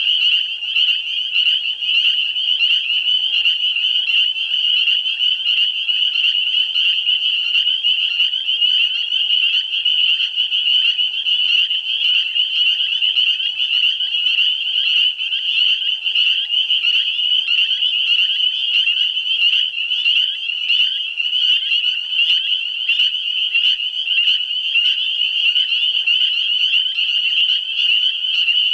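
Dense spring breeding chorus of frogs: many high-pitched calls overlapping into one steady, loud, noisy din.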